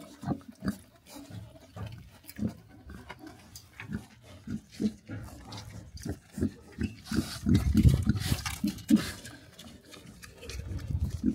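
Pigs grunting in many short, low grunts that come thicker and louder from about seven seconds in.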